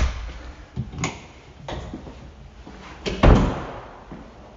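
A door shut with a heavy slam about three seconds in, with a short ringing decay. A few lighter clicks and knocks come before it.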